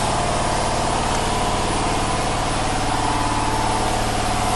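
Power generator's engine running at a steady speed, a constant drone with no change in pitch or level.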